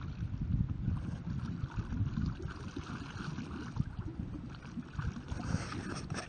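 Water splashing and gurgling from a homemade pedal kayak's pedal-driven rotating side paddles as it is pedalled along, over a low, uneven rumble.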